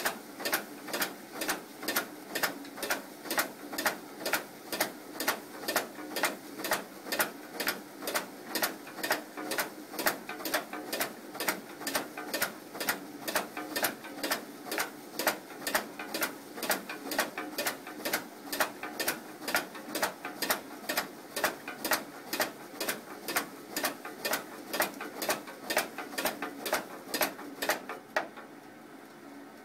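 AMS ATS-12 tabbing machine running, feeding and tabbing mail pieces: a steady hum with a sharp click about two and a half times a second, one cycle per piece. It stops near the end.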